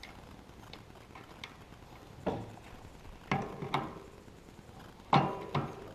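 Metal bicycle cassette parts and lockring clicking and clinking as they are handled and fitted onto the hub, with a few louder, briefly ringing clanks about two, three and a half and five seconds in.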